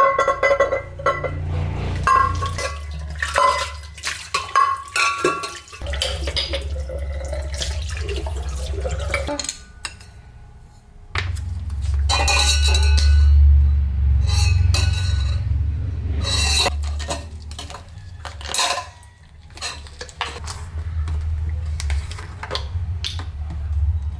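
Cups, spoon and glassware clinking and knocking, with liquid being poured, while coffee is made. A steady low hum runs underneath for long stretches.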